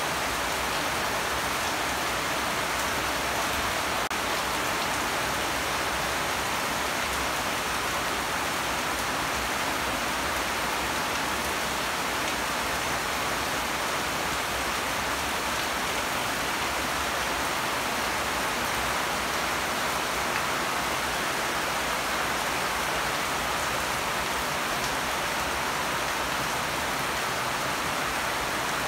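Heavy rain falling steadily on the ground and foliage, an even hiss with no let-up.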